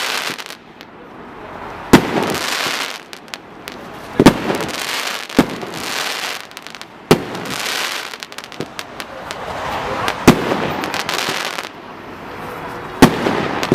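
Firework cake (MC 150 36 battery) firing. About seven sharp bangs come a second or two apart, each followed by a spell of crackling.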